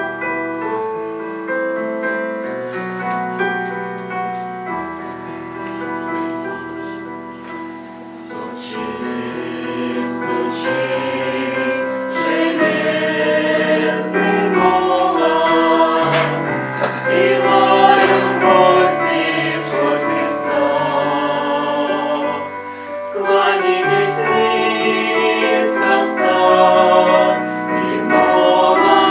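Christian hymn performed by a choir of mixed voices with keyboard accompaniment. The opening seconds are mostly instrumental, and the singing grows fuller and louder from about a third of the way in.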